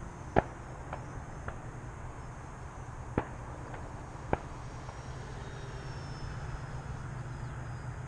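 Faint, thin high whine from the E-flite P-39 Airacobra's electric motor and propeller in flight, slowly falling in pitch, over a steady low rumble of wind on the microphone. Six sharp clicks come in the first half, the loudest about half a second in.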